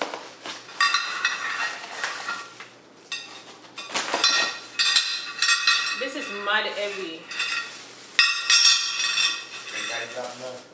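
A cast iron pot and its lid clinking and rattling as they are lifted out of a cardboard box, with plastic wrapping crinkling as it is pulled off. There are three bursts of ringing clatter, about a second in, around the middle, and near the end.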